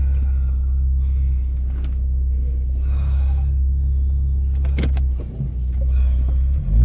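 Car engine running with a steady low rumble, with faint knocks about two and five seconds in; guitar music comes in right at the end.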